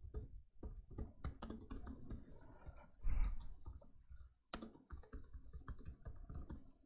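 Typing on a computer keyboard: irregular keystroke clicks as a short line of text is entered, with one duller thump about three seconds in.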